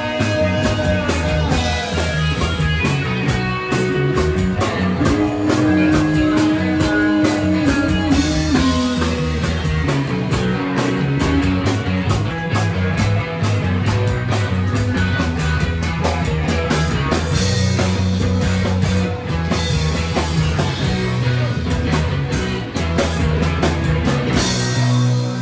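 Live rock band playing an instrumental passage: drum kit with steady cymbal strokes over bass and guitar.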